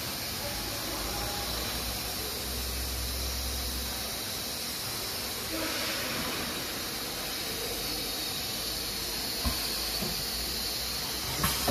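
A steady hiss of machinery or air noise, with two short knocks about nine and a half seconds in and near the end.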